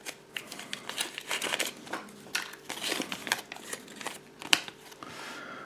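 A paper instruction leaflet crinkling and rustling while a small plastic Kinder Surprise toy is handled, with scattered light clicks of the plastic pieces and one sharper click near the end.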